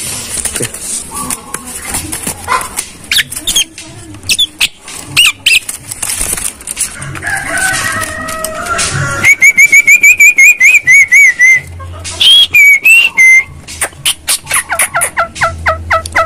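Caged Javan myna (jalak kebo) calling, with mixed clicks and short whistles. A bit past halfway comes a fast run of about a dozen repeated whistled notes, then a few single whistles and a quick series of clicking notes near the end.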